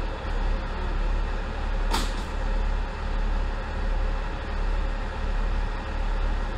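Twin Cummins diesel engines of a BEML OHE inspection car idling with a steady low rumble. A short sharp hiss cuts in about two seconds in.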